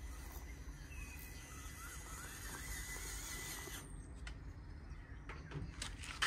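Electric motor and geared drivetrain of a Traxxas TRX-4MT RC monster truck whining faintly as it drives, cutting off suddenly about four seconds in when the truck stops. A bird chirps in the background.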